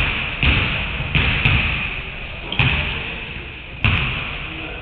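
Basketballs bouncing on a hardwood gym floor: about half a dozen irregularly spaced thuds, each ringing on in the hall's echo.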